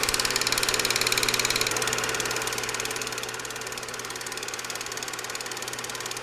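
Film projector running: a fast, even mechanical clatter over a steady hum, a little louder for the first couple of seconds.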